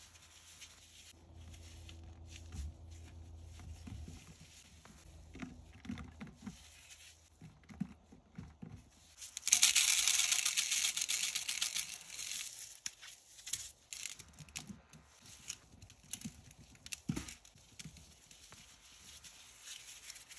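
A gloved hand crumbling and crushing clumps of pink cleaning powder in a glass bowl, with soft scattered crunches and crackles. About ten seconds in there is a louder rush lasting about three seconds as powder is sprinkled down into the bowl.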